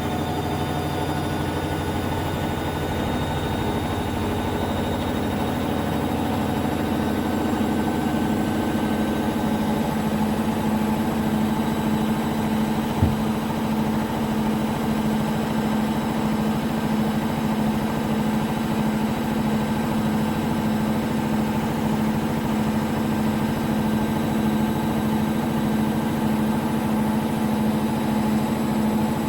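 Washing machine running on its spin cycle, a steady mechanical hum whose main tone settles about ten seconds in, with a single knock about 13 seconds in. The machine is not levelled, so it vibrates as it spins.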